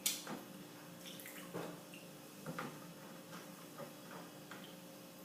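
Spoon stirring a gelatin and water mixture in a bowl: a sharp clink at the start, then scattered faint taps and liquid sloshing.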